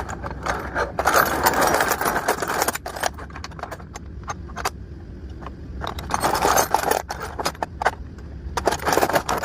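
Loose metal Allen wrenches (hex keys) clinking and rattling against one another as they are sorted through by hand. The clinking comes in two busy spells, with a quieter stretch in the middle.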